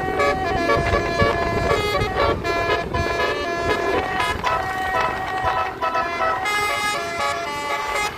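Bus telolet horn, a Basuri multi-tone air horn, playing a melody of changing notes over the low rumble of the bus.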